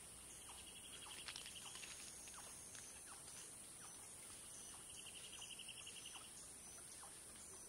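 Faint forest ambience: two bouts of a fast, even, high trill about a second and a half long each, with scattered short falling chirps and a steady high hiss.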